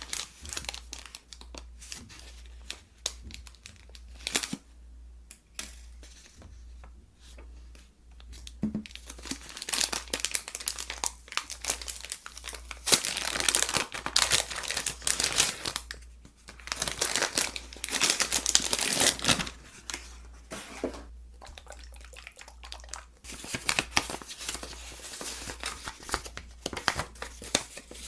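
Slime being squeezed and worked by hand: dense crackling and popping, louder in two stretches past the middle.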